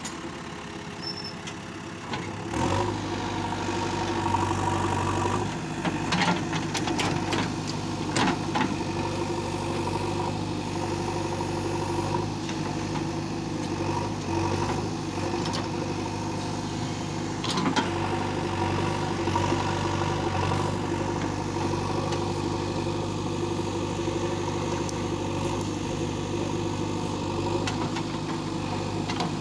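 JCB 3DX Eco backhoe loader's diesel engine running steadily under working load as the backhoe digs, its note stepping up and louder a couple of seconds in. A few short knocks and clanks sound from the working arm and bucket, bunched several seconds in and again near the middle.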